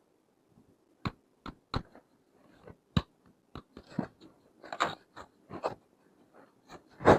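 Plastic toy pieces and packaging being handled: irregular sharp clicks and taps from about a second in, then short crinkling, rustling bursts, the loudest near the end.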